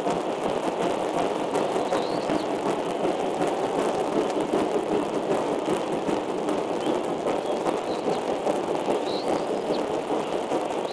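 Steady rushing background noise, with a few faint, short high chirps from bald eagle nestlings begging as they are fed.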